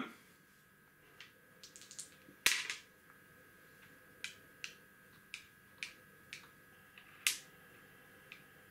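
Dice rolled on a wooden backgammon board, clattering about two and a half seconds in, followed by a series of single clicks, about one every half second, as wooden checkers are set down point by point on the board, with one harder knock near the end.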